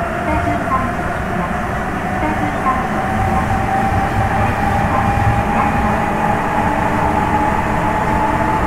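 Interior running sound of a Sapporo Municipal Subway 9000 series train: a steady motor whine rises slowly in pitch as the train gains speed, over the low running noise of its rubber tyres.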